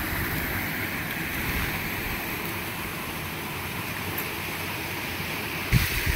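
Steady rushing of a mountain stream spilling over a small waterfall. Near the end, louder irregular low bumps take over.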